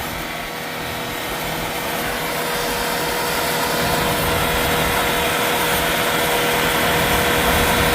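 Hyundai Veracruz's V6 diesel engine floored with the car standing, held at high revs for a free-acceleration smoke-opacity test. It is a steady, loud running note that climbs a little in loudness over the first few seconds and then holds.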